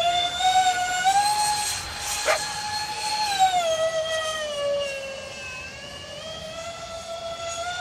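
Electric ducted-fan whine from a Freewing Su-35S model jet flying aerobatics overhead. The high whine rises slightly, sinks in pitch over a couple of seconds around the middle as the throttle comes back and the jet moves away, then climbs again near the end.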